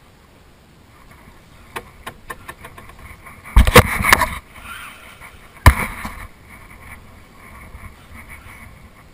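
Handling noise from a spinning rod and reel being worked during a tarpon fight, close to the microphone. A run of small ticks comes first, then a loud jolt and clatter about three and a half seconds in, and a single sharp knock just before six seconds.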